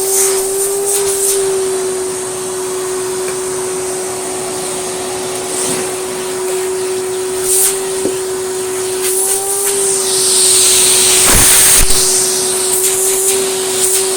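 Hoover Celebrity S3005 hover vacuum cleaner running on carpet: a steady motor whine over rushing air. The air noise swells louder about ten to twelve seconds in.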